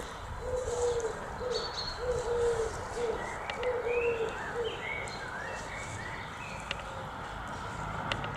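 A dove cooing, a run of short and longer low coos alternating through the first half, while small birds chirp higher up with rising and falling notes.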